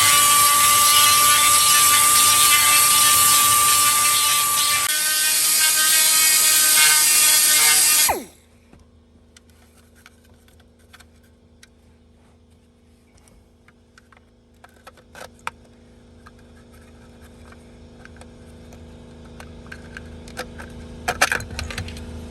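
A handheld power tool boring out a hole in a plastic panel, running with a steady high whine that drops in pitch about five seconds in, then cutting off suddenly after about eight seconds. Light clicks and knocks of handling follow.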